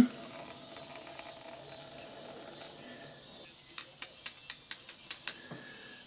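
Light clicks of a plastic lawn-mower carburetor being tipped and shaken by hand to drain its fuel: a quick run of about eight short clicks in the second half, roughly four or five a second.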